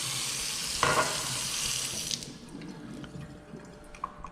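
Kitchen tap running water into a cup, shut off abruptly about two seconds in; a few faint clicks follow.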